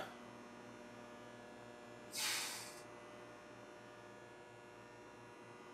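Steady low hum with a brief hiss about two seconds in that fades within a second.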